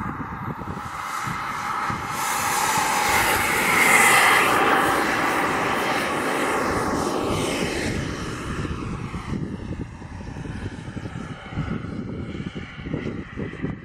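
RC model jet's K180G turbine at full power on the takeoff roll. Its whine and hiss build to a peak about four seconds in, fall in pitch as the jet passes and climbs away, then fade. Wind buffets the microphone in the second half.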